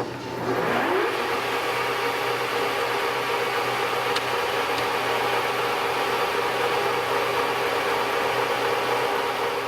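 TOS SUI50A engine lathe switched on: a click, then the spindle drive rises in pitch for about a second and settles into a steady running whine of motor and gearing over a constant low electrical hum.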